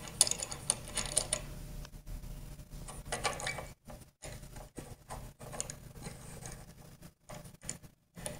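Wing nut being turned by hand on a threaded steel bolt, the height adjuster of a table saw outfeed table. Small metal clicks and rattles come quickly in the first second and a half, then now and then.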